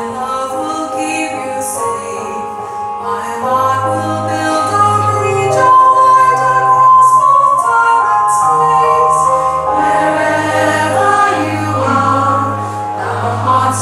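A woman singing long held notes with choir voices and musical accompaniment over a steady bass.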